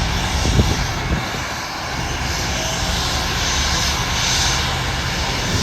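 Airplane engines running with a steady, loud rush and a low rumble.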